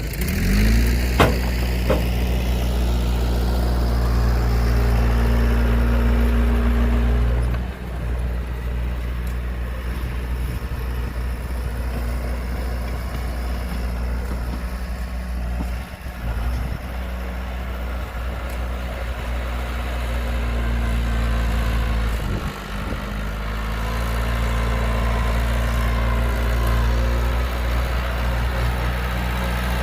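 Heavy diesel engine of earthmoving machinery running steadily. Right after a sharp knock at the start its pitch rises within a second, and it dips briefly a few times.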